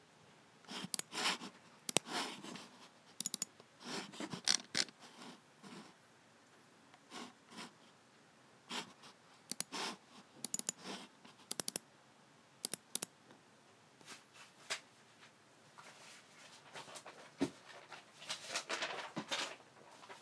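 Logitech G7 computer mouse clicking in irregular single clicks and quick runs, with longer scraping sounds in between.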